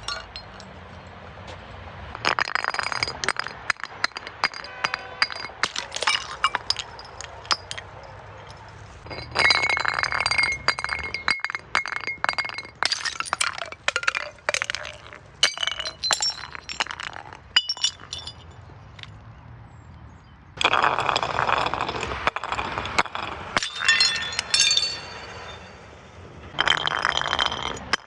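Glass bottles breaking and being crushed: repeated bursts of cracking and crunching, with shards clinking and ringing. Loud bouts come about 2 s in, for several seconds from about 9 s, and again in the last seven seconds, with lighter crackling between them.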